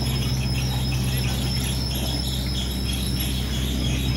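Medium bus engine running steadily as the bus crawls at low speed over a rough, unpaved road, with a steady high-pitched whine over it.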